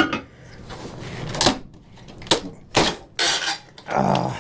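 Wooden shipping crate being pulled apart by hand, its boards coming loose on their nails. There are several sharp knocks and scraping clatters of wood.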